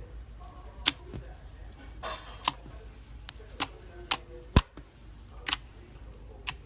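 Slime being handled, making a string of sharp clicks and pops, about seven of them at irregular intervals, with a brief squishy rustle about two seconds in.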